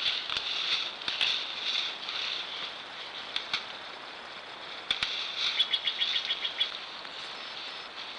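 Outdoor meadow ambience picked up by a trail camera, with a rapid series of short high chirps about two thirds of the way through, roughly ten a second, and a few sharp clicks.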